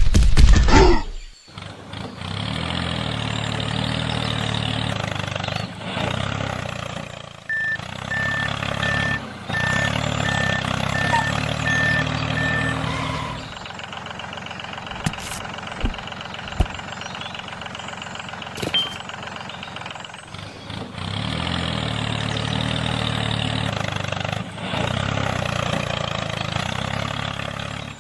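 A vehicle engine running in stretches, dropping away for several seconds in the middle and then coming back. A row of short, evenly spaced high beeps, like reversing beeps, sounds partway through.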